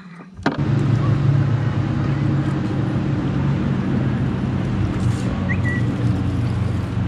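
Bass boat's bow-mounted electric trolling motor running, a steady low hum that starts suddenly about half a second in.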